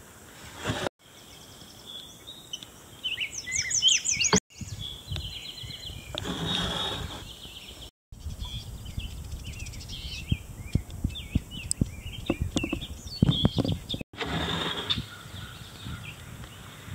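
Songbirds singing and chirping over a small creek's running water, with a fast falling trill about three seconds in. Short rushes of water noise come twice, and scattered sharp knocks and splashes follow later. The sound drops out briefly four times.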